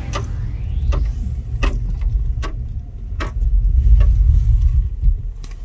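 Car driving slowly: a low rumble from the vehicle and road, with several sharp knocks at irregular intervals.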